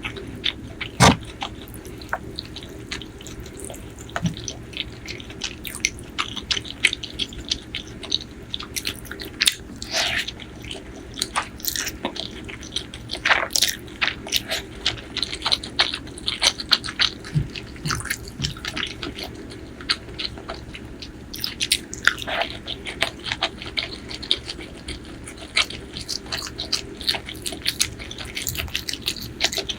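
Close-miked eating sounds: chewing with many short, irregular wet mouth clicks and smacks, and one loud sharp bite or smack about a second in.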